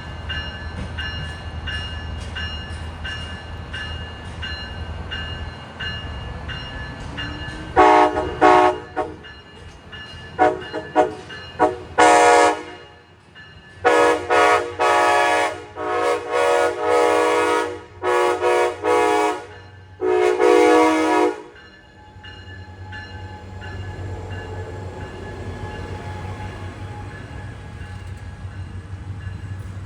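Amtrak locomotive's multi-tone air horn sounding a long run of blasts, long and short, over about fourteen seconds, over the low rumble of the departing diesel train. Before the horn starts, a steady ringing about twice a second.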